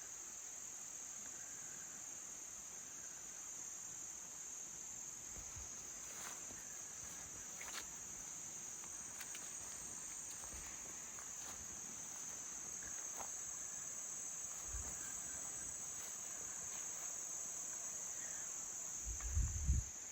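Steady, high-pitched chorus of insects, an even unbroken buzz, with a few faint clicks and a short low thump near the end.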